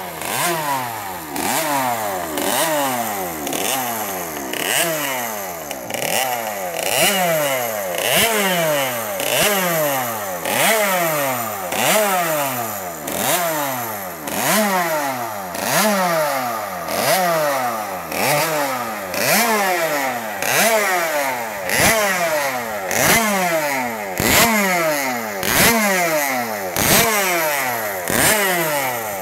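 Bultaco 50 GP's 49 cc two-stroke racing engine being revved in repeated throttle blips, about one every 1.3 seconds. Each blip jumps up sharply and then falls away in pitch before the next.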